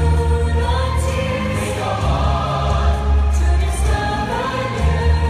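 Show soundtrack music: a choir singing held notes over orchestral music with a strong, steady deep bass.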